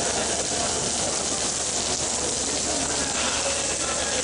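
Steady hiss of rainfall, with faint voices in the background.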